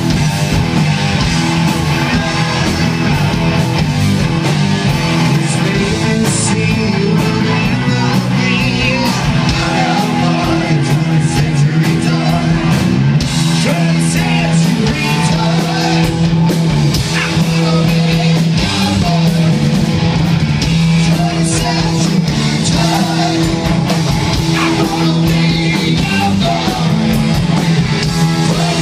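Live rock band playing loud: electric guitars, a drum kit and a singing voice, without a break.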